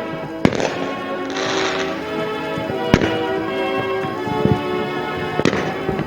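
Fireworks going off: three sharp bangs spaced about two and a half seconds apart, with a crackling burst a little over a second in. Background music with sustained chords plays under them.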